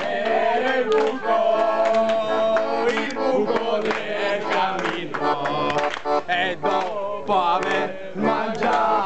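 Accordion playing a folk tune, with voices singing along over it.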